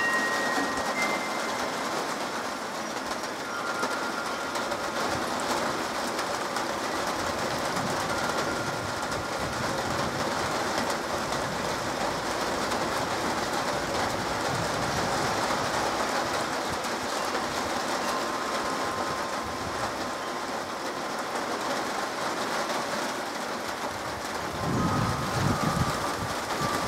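Steady rain falling and pattering on pavement, roofs and trees, heard as an even hiss. Near the end a gust of wind buffets the microphone with a louder low rush.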